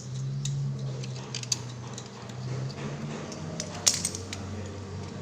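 Scattered light clicks and taps, one sharp click about four seconds in, from a plastic fan blade being fitted onto a refrigerator fan motor, over a steady low hum.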